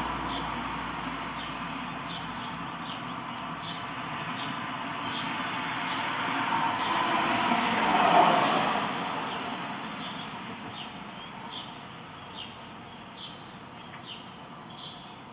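A passing vehicle, its noise rising to its loudest about eight seconds in and then fading away. Short, high bird chirps repeat over it, more often near the end.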